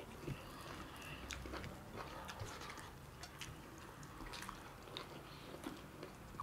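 Faint eating sounds: scattered small clicks and soft chewing as people eat mutton curry and rice.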